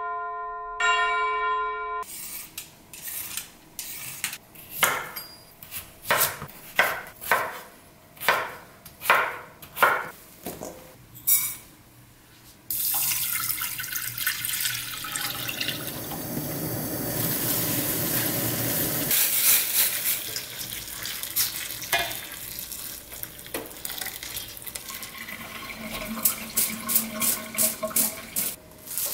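A chime rings, then a knife makes a run of sharp cuts through cucumbers on a board, about one stroke a second. Tap water then pours in a steady stream into a stainless steel saucepan for several seconds. Near the end cucumber chunks rattle in a metal colander as they are rinsed and drained at the sink.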